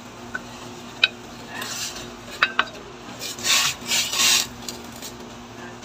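A wooden spatula scrapes sliced okra and string beans off a plate into a pot of simmering soup, with a few sharp taps of wood on the plate and pot rim, then stirs the vegetables in. A steady low hum runs underneath.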